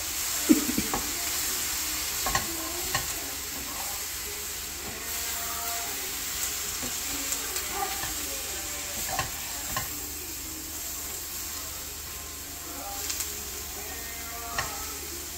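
Cut green beans for a thoran sizzling steadily in a frying pan while a wooden spatula stirs them, knocking and scraping against the pan now and then; the sharpest knock comes about half a second in.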